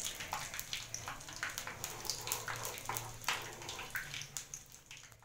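Cumin and fenugreek seeds sizzling and crackling in hot mustard oil in a wok, stirred with a ladle.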